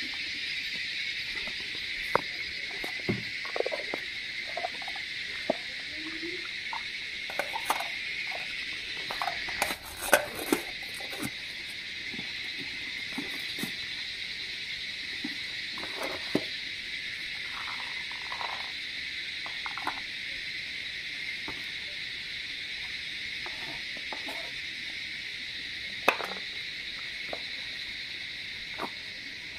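A steady chorus of insects chirring, with scattered clinks and knocks from hands handling nesting camping cookware and a knife on a wooden board; the loudest knocks come about ten seconds in and near the end.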